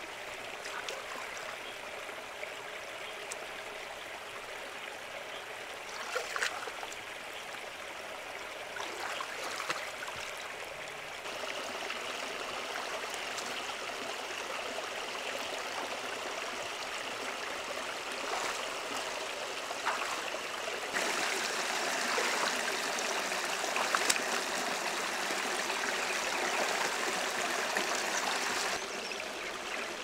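Shallow river water running over rocks, a steady rushing that gets louder in stretches, with a few brief splashes from wading and reaching into the water.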